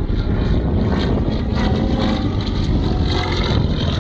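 Small aerobatic plane's engine running steadily as it flies a smoke-trailing manoeuvre, with its pitch shifting a little in the middle.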